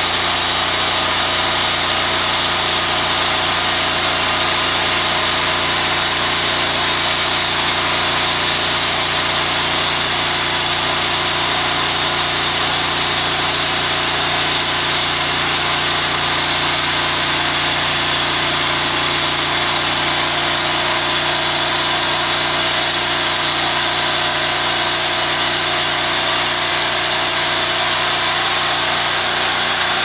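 TimberKing 2000 portable band sawmill running steadily under load, its engine and band blade sawing a slab off a large pecan log.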